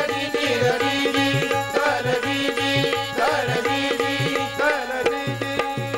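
Instrumental interlude of Marathi powada folk music: a hand drum beating a steady repeating rhythm under held drone tones and a gliding melody line.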